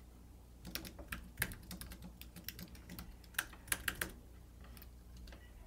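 Typing a password on a computer keyboard: a quick run of key clicks that starts just under a second in and stops about four seconds in, with a few louder keystrokes near the end of the run.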